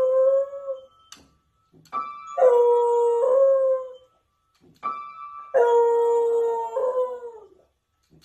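A beagle pressing upright-piano keys with its front paws and howling along. A howl trails off just after the start, then twice a few jangled piano notes are followed by a long howl held for about a second and a half.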